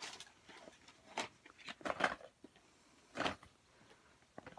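Small cardboard makeup boxes being handled and packed into a zippered cosmetic bag: about five short scuffs and rustles, spread a second or so apart.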